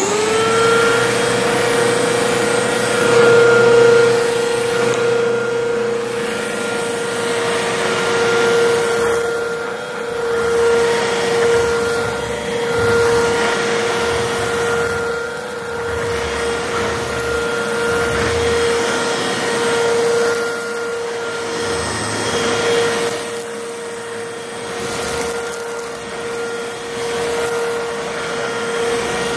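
Pacer 12UE upright vacuum cleaner switched on, its motor spinning up within a second to a steady high whine. It then runs steadily with a suction hiss that swells and eases as it is pushed back and forth over a carpet mat.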